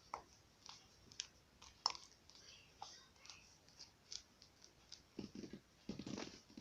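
Faint, scattered small clicks and crinkles from a toothpaste tube being handled and squeezed, with a few louder rustles near the end.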